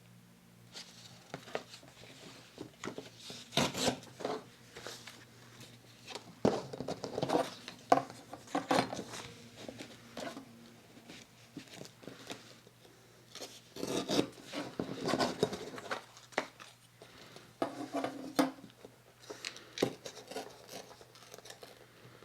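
Paper rustling and crinkling as craft scraps are handled and sorted, with irregular light clicks and scrapes.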